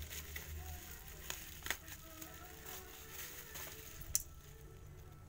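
Bubble wrap rustling and crackling as a wrapped package is handled and unwrapped, with a few sharp crackles, the loudest about four seconds in, over a low steady hum.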